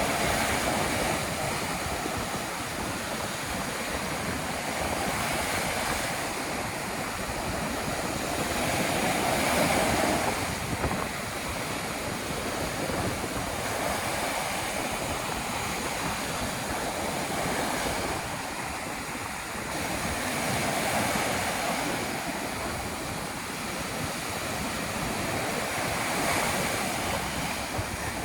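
Ocean surf breaking on a beach in stormy weather, a continuous wash of waves that swells and fades every several seconds, with wind buffeting the microphone.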